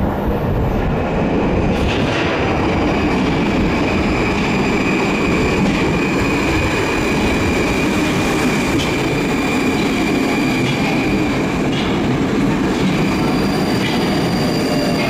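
Moskva-2020 (81-775/776/777) metro train pulling in alongside the platform: a steady rumble of wheels on rail with a high steady whine, and a few light clicks as the wheels run over rail joints. Another tone comes in near the end.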